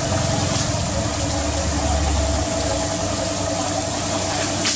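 Pressure washer running with a steady hum, its water jet hissing onto a foam-covered engine bay. A low rumble under it drops away about halfway through.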